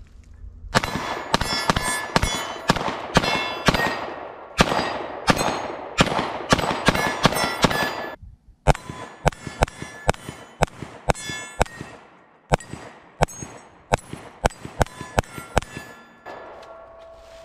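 CZ 75 D PCR 9mm pistol fired in fast strings of shots, most followed by the ring of a struck steel plate, with a short break a little after eight seconds in.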